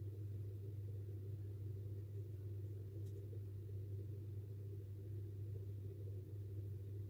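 Steady low hum, unchanging throughout, with one faint tick about three seconds in.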